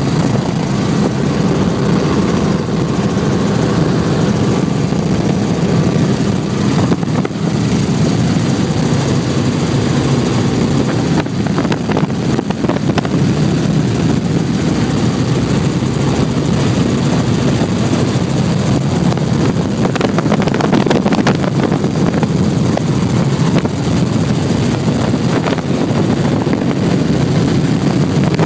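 Helicopter engine and rotor noise heard from inside the cabin in flight: a loud, steady drone.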